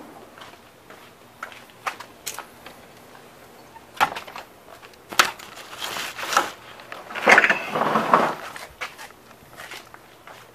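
Phone handling noise and footsteps across a doorway, with a few sharp knocks and clicks and rustling scrapes that are loudest about seven to eight seconds in.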